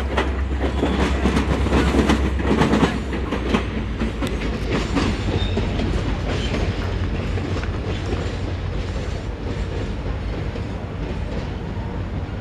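Passenger cars and a caboose rolling away on rail, their wheels clicking over the rail joints. The clicks are strongest in the first few seconds and fade as the train recedes, over a steady low rumble.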